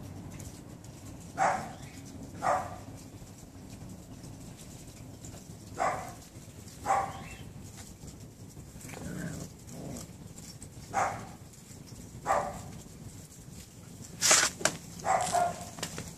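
A dog barking in short single barks, spaced a second or a few seconds apart, with a quicker run of barks near the end.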